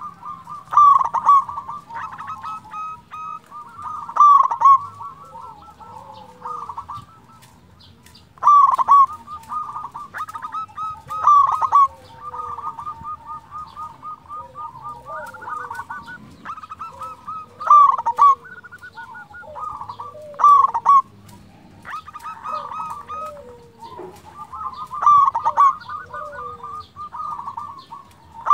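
Zebra dove (perkutut) singing in full song: a steady run of rapid cooing notes, broken every few seconds by louder stressed coo phrases.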